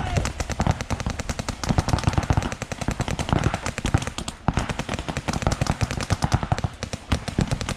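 Paintball markers firing rapid strings of shots, about ten a second, with brief lulls.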